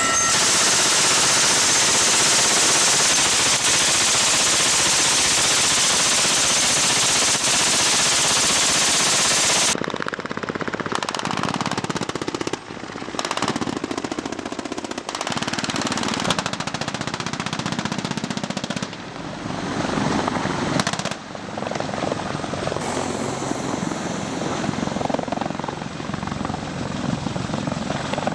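Loud, steady helicopter noise for about ten seconds. Then comes a string of short cuts of gunfire, with rapid bursts of rifle and machine-gun fire.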